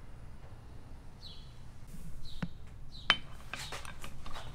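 A few sharp clicks and light knocks of a metal injector tube against a clamped metal lure mold while melted soft plastic is loaded and injected; the loudest click comes about three seconds in. A bird chirps several times in the background, short dropping notes.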